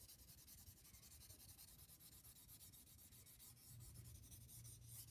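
Faint pencil scribbling on paper: graphite rubbed back and forth in quick, even strokes, several a second, shading the back of a sheet.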